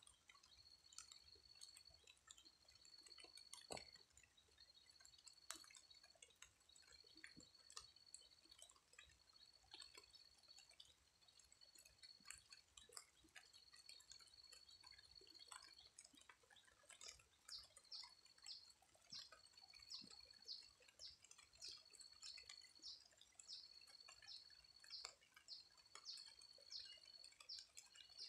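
Very faint scattered drips of light rain, with a thin high-pitched whine repeated in phrases of about a second. About two-thirds of the way through, the whine turns into rapid pulsing.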